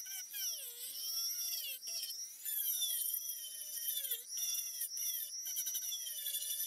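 Handheld rotary tool with a sanding drum sanding a wooden sword grip: a high motor whine whose pitch sags and recovers over and over.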